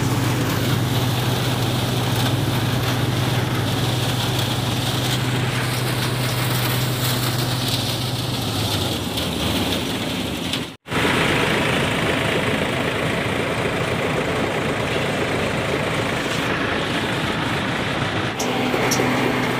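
Groundnut thresher running steadily, driven by a tractor, with the machine's constant noise over a low engine hum. The sound drops out for an instant about eleven seconds in.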